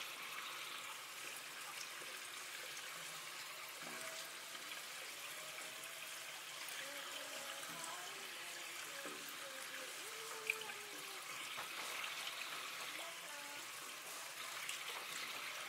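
Steady trickle of running water, with faint distant voices and a single sharp click about ten and a half seconds in.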